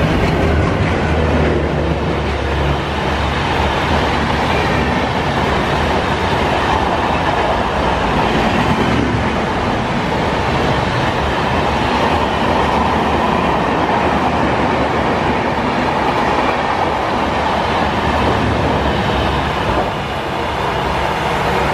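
An express train passing at speed behind a WDM3A diesel locomotive: the locomotive's low engine drone in the first few seconds, then a steady rumble and clatter of the coaches running by, all in heavy rain.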